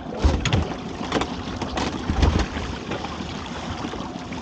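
Wind and water noise on a small open boat at sea, with several short knocks and low thumps in the first half.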